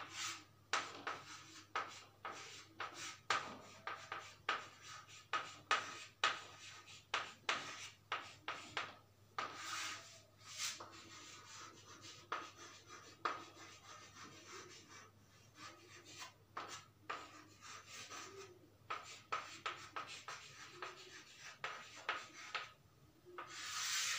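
Chalk writing on a chalkboard: a run of short scratching and tapping strokes as letters are written, with brief pauses. A longer stroke near the end draws a line under the words.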